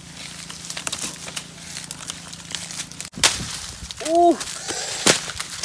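Crackling rustle of leaves and twigs, then bare feet stepping on dry fallen leaves with a few sharp crunches, and a short voiced sound about four seconds in.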